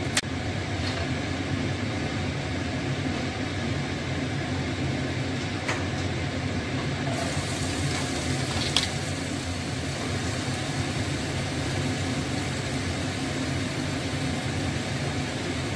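Steady hum of a kitchen exhaust fan running over a lit gas burner, with a few light knocks from the counter, the loudest about nine seconds in.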